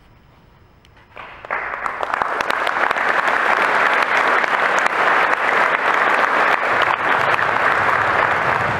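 Audience applauding. The clapping starts about a second in, swells quickly and then holds as steady, dense applause.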